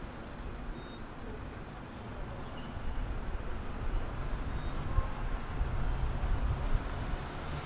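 Low vehicle rumble of city street traffic, swelling from about three seconds in.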